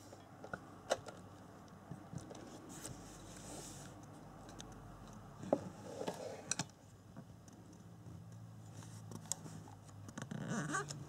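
Faint handling noise: a few scattered sharp clicks and light taps among soft rustling, from a handheld camera being moved around.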